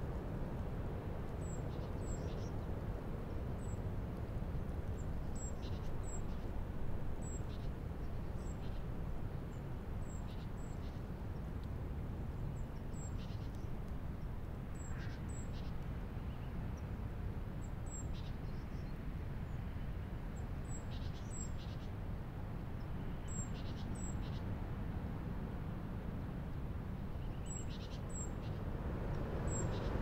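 Strong wind blowing through the bare branches of a birch tree in winter, a steady low rushing noise. Short, high bird calls sound again and again over it throughout.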